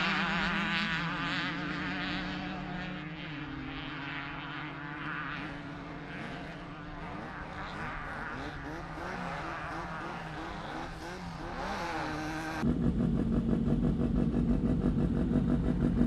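Off-road race vehicle engines: one running and revving, its pitch rising and falling as it fades away over most of the clip, then an abrupt cut to a louder engine running steadily.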